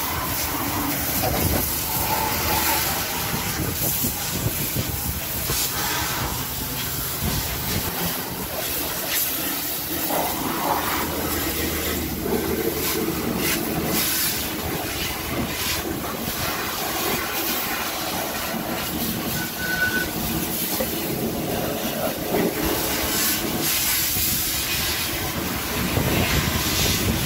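Water from a garden hose spraying hard against a car's side and underbody. It makes a steady hiss with splashing and dripping onto wet concrete.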